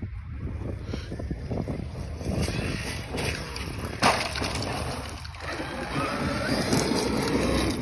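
Traxxas X-Maxx electric RC monster truck driving on gravel: its brushless motor whines up and down in pitch over the crunch of tyres on loose stones, with wind buffeting the microphone. A sharp thud about four seconds in as the truck tumbles.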